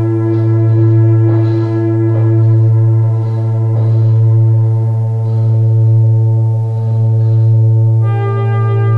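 Yamaha DX7 FM synthesizer playing a slow ambient pad: a held chord over a steady low bass note, with a few soft new notes struck in the first few seconds and a new, brighter chord coming in near the end.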